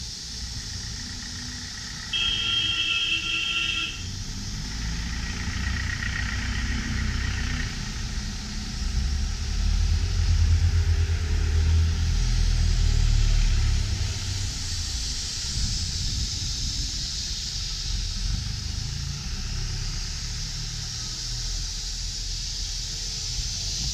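Darjeeling Himalayan Railway B-Class narrow-gauge steam locomotive running, with a constant steam hiss and a low rumble from the engine and wheels that grows louder about halfway through. About two seconds in, a high, shrill whistle sounds for about two seconds.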